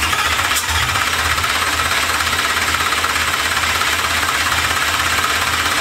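Lamborghini Huracán V10 being turned over by its starter motor on a first start attempt, a loud, steady, rapid rhythm, without catching. The exhaust runs straight out of the manifolds, with no mufflers.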